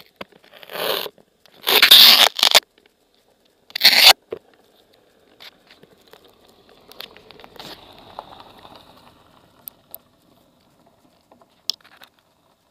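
Handling noise on a small camera: several loud scrapes and rubs of fabric and fingers against the microphone in the first four seconds, then softer rustling and a few sharp clicks.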